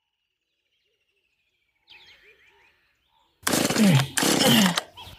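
Faint bird chirps, then about three and a half seconds in two loud, harsh bursts of noise, each about two-thirds of a second long with a strong falling pitch.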